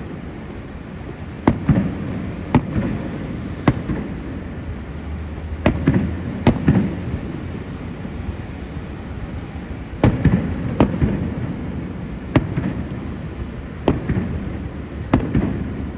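Aerial fireworks show: about a dozen sharp bangs at uneven intervals, often a second or two apart, with a low rumble carrying on between them.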